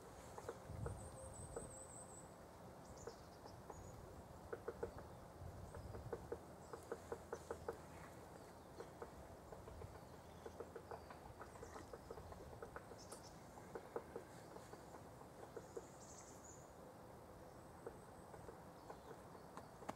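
Faint small clicks and light rustling close by, some in quick runs of several a second, with a bird's high chirps about a second in and again near the end.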